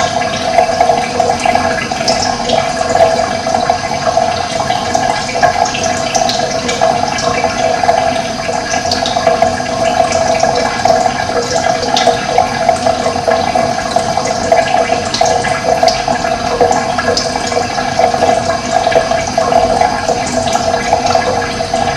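Running water flowing steadily with an even rushing sound, with birds chirping in short, scattered calls above it.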